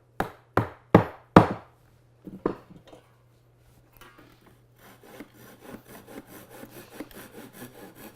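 A wooden dowel pin driven into a drilled hole through a breadboard end and tenon: four sharp knocks in quick succession, then two lighter ones. About halfway through, a hand saw starts cutting off the protruding dowel in quick back-and-forth strokes.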